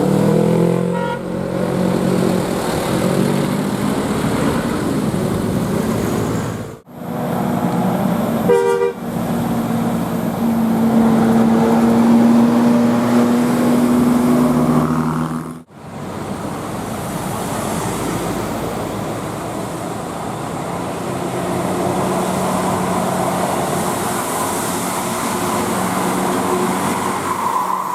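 Bus 'telolet' horns: multi-tone musical air horns sounding in held notes over engine and traffic noise. The sound breaks off abruptly twice, about seven and sixteen seconds in.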